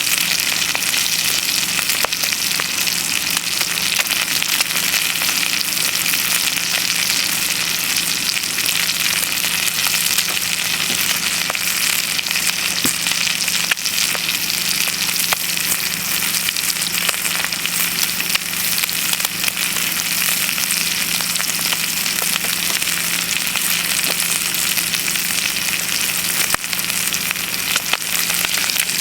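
Bacon and eggs sizzling steadily in a frying pan over a wood-fired rocket stove, with small scattered pops and crackles.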